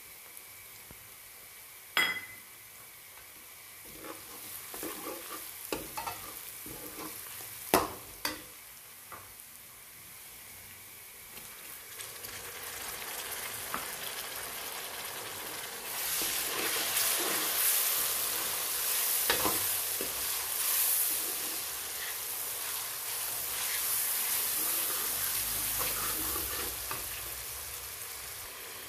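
Onions sizzling in hot oil in an aluminium karahi while a metal ladle stirs and scrapes, with a few sharp metal clinks in the first third. Midway the sizzling grows much louder and stays loud once chopped tomatoes are in the oil.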